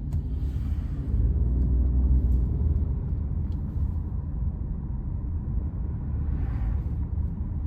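A low, steady rumble that swells about a second in and eases after about three seconds, with a short hiss near the end.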